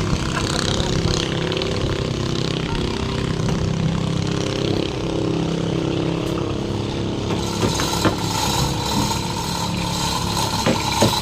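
An engine running steadily at an even speed, with a few sharp knocks about eight seconds in and again near the end.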